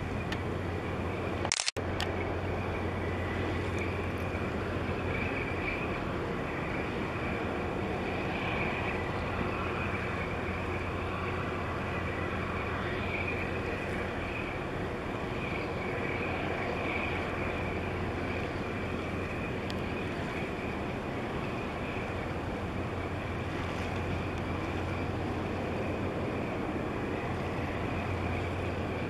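Steady outdoor background noise with a constant low hum running under it. It cuts out completely for a moment just under two seconds in.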